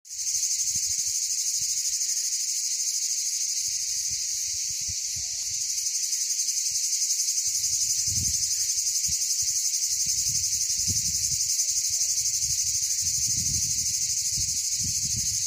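Cicadas shrilling in a steady, dense, high-pitched chorus with a fast pulse. From about halfway through, low rumbling comes and goes underneath.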